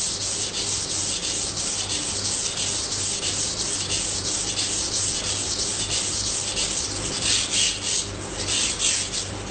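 Kitchen knife blade being pushed in quick, regular strokes across a wet sharpening stone, a steady rasping hiss at a held angle, the even sound of correct sharpening. Towards the end the strokes turn louder and more uneven as the angle is changed, a sound the sharpener calls no good.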